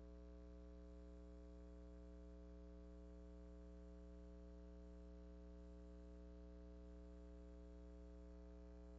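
Near silence: a steady low hum that never changes, with faint high-pitched tones switching on and off.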